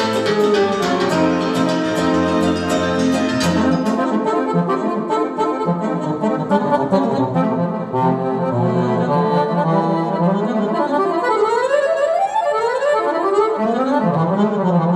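Button accordion playing a solo in live lăutari music, with fast runs sweeping up and down. A steady beat backs it at first and stops about four seconds in.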